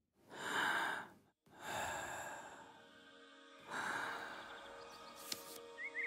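Three long, breathy sighs one after another, as of someone drawing deep breaths. Soft held music notes come in under them, and a bird chirps briefly near the end.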